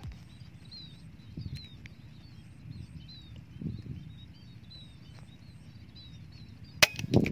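Wind rumbling on the microphone, with small birds giving short, high, falling chirps over and over. Near the end comes a sharp crack, an air rifle shot, followed by a knock.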